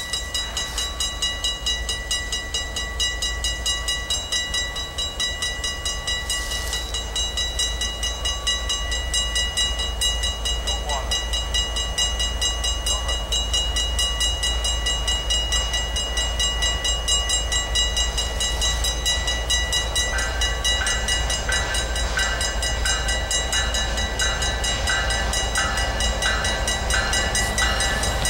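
Railroad grade-crossing warning bell ringing in quick, even strokes while the crossing signals flash, with the sound of an approaching freight train slowly growing louder. About two-thirds of the way through, a second, slower ringing pattern joins in.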